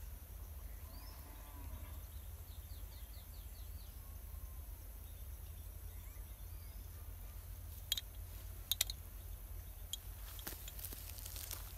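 Quiet rural outdoor ambience over a steady low rumble, with faint bird calls and a short trill a couple of seconds in, and a few sharp clicks in the second half.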